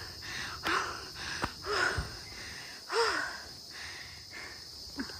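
A person breathing hard and out of breath from climbing steps, with a few gasping, half-voiced breaths. The loudest come about a second, two seconds and three seconds in. Insects chirp steadily behind.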